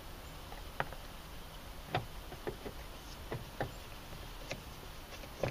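About eight irregular light clicks and taps of a screwdriver turning a screw into the plastic door-handle recess of a car door panel.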